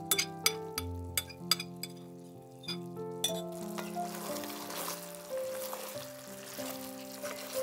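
Chicken wings in sauce sizzling in a cast-iron skillet while being stirred with a wooden spatula. The hiss starts about three seconds in. Background music plays throughout.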